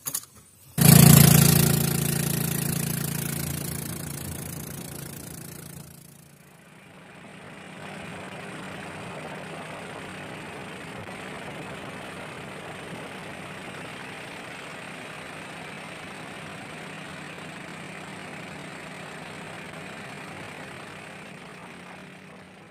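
Small boat's motor starting with a sudden loud burst about a second in and then easing off over several seconds. After a brief break, the motor runs steadily as the boat moves along the river.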